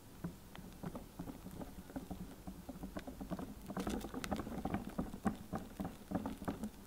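Wire balloon whisk clicking and tapping against a glass mixing bowl while stirring egg yolks into meringue, with soft wet sounds of the mixture. The clicks come irregularly and get busier and louder about halfway through.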